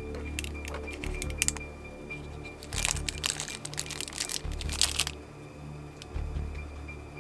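Thin plastic bag crinkling in two spells of crackles, briefly about half a second in and again for about two seconds from about three seconds in, as it is pulled off a small figure head. Background music with a low steady bass runs underneath.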